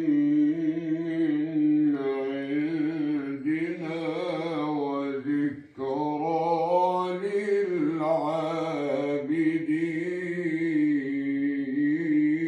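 A man's voice in slow, melodic Quran recitation, drawing out long wavering ornamented notes. There is one short break for breath a little before halfway.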